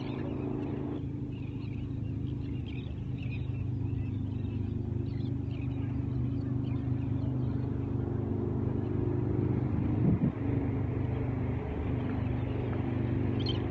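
A motor engine running steadily, a low drone that grows slowly louder, with a brief bump about ten seconds in.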